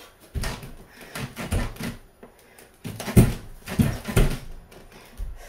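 A person doing quick pull-ups on a doorway pull-up bar: a series of short straining grunts and hard breaths, with knocks from the bar in the door frame, loudest about three seconds in.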